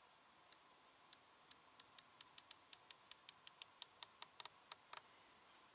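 Rifle scope's elevation turret being turned by hand: about twenty faint clicks, slow at first and then quickening to about five a second. This is the elevation being adjusted while sighting in, to correct shots that are landing low.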